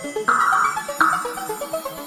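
Background electronic music: a quick arpeggio of short synthesizer notes, with two bright accented hits about a second apart.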